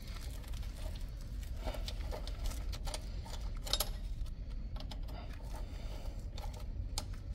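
Scattered light metallic clicks and clinks of tools and small parts being handled at a BMW R1200GSA's front Brembo brake caliper during a brake pad change, two sharper clicks about four and seven seconds in, over a low steady hum.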